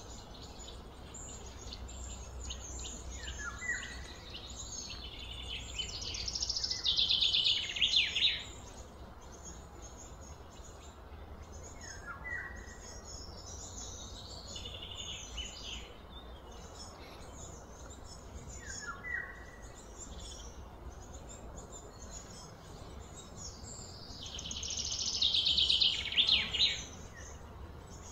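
Birds calling outdoors: scattered high chirps and a short falling call repeated three or four times. Twice a louder pulsed buzzing trill builds up over a couple of seconds and then cuts off. Faint low hum underneath.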